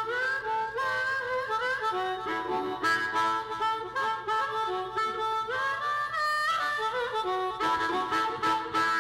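Instrumental closing theme music: a melody with sliding notes over held chords.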